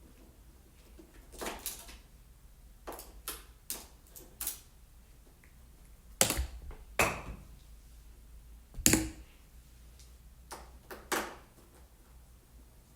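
Scattered clicks and knocks of tools and parts being handled, with three sharper, louder knocks about halfway through.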